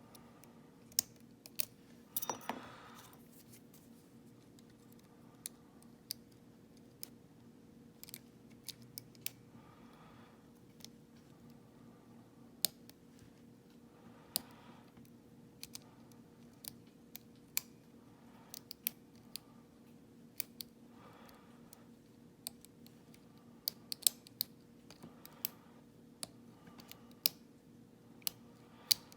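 Lock-picking tools working in an EVVA 3KS padlock core: irregular sharp metallic clicks and ticks as the pick sets pins against tension, with a louder cluster of clicks about two seconds in.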